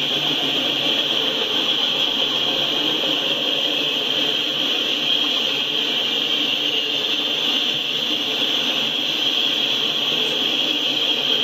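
Autorack freight cars rolling past: the steady rumble and hiss of steel wheels running on the rails.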